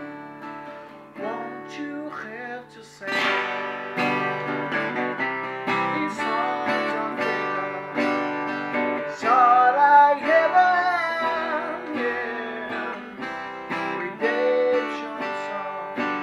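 Background music led by strummed acoustic guitar, getting louder about three seconds in.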